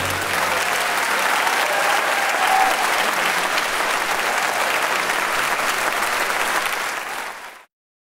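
Audience applauding steadily, then tapering and cutting off abruptly near the end.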